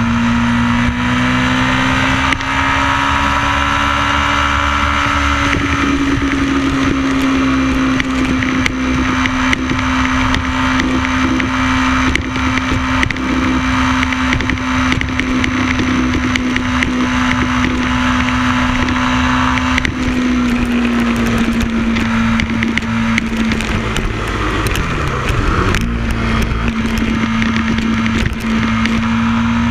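Motorcycle engine running at a steady cruising speed, its pitch easing up a few seconds in, sagging a little about two-thirds through and climbing again near the end, over steady wind rushing past the microphone.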